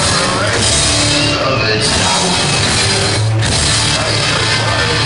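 Psychobilly band playing loud and live, with upright bass, electric guitar and drum kit.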